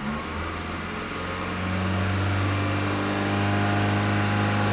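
2001 Mitsubishi Galant engine idling in drive with the parking brake set, a steady hum that grows louder over the first two seconds and then holds. The engine has a running misfire that worsens under load.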